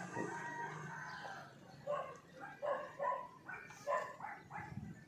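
A rooster crows for about a second and a half, then a dog barks about seven times in quick succession.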